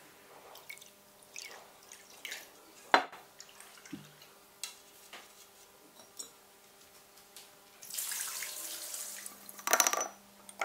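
Scattered drips and light splashes of water with small clicks and taps of glassware: liquid poured from a glass decanter into a glass bowl of water and stirred. Near the end a short splashing hiss and a quick clatter of brushes against glass paint jars.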